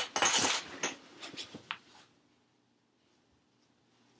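Rustling, scraping and a few sharp clicks of gear being handled close to the microphone, cutting off to dead silence about two seconds in.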